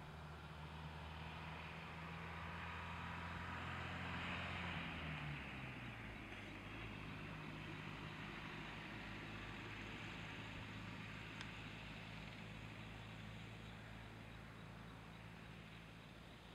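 A motor vehicle's engine hum with a rushing swell that peaks about four seconds in. The hum's pitch drops around five seconds in, as a passing vehicle's does, and then goes on steadily lower.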